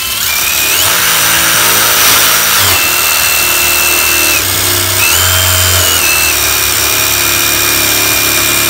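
Brushless cordless drill spinning a wire wheel against rusted wheel-arch sheet steel, stripping surface rust. The loud motor whine and brushing noise start suddenly, and the whine rises and falls in pitch a few times as the speed changes.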